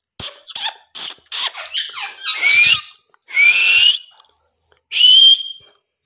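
Indian ringneck parakeet vocalising: a quick run of raspy, high-pitched chattering syllables for about two and a half seconds, then two shrill calls that glide upward in pitch.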